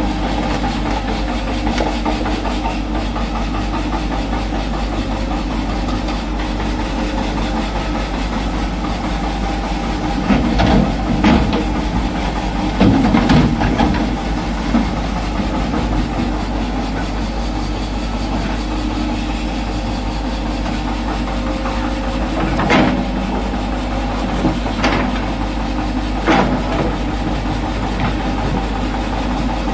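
Hitachi Zaxis 210F excavator's diesel engine running steadily under hydraulic work. About ten seconds in, a louder, rougher stretch of rock tumbling into the dump truck's steel bed; later, a few sharp knocks of the bucket striking rock as it digs.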